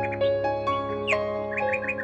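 Soft relaxing background music of held notes, with bird chirps over it, including a quick run of about four chirps in the second half.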